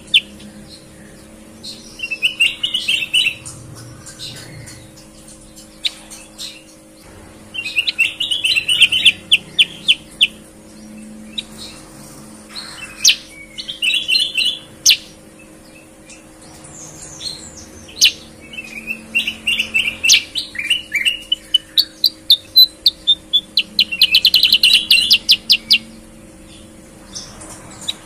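Caged kutilang bulbuls singing in bouts of rapid, clear chirping trills a few seconds apart. The song is clear-toned, likened to a greater green leafbird's (cucak ijo). A faint steady hum runs underneath.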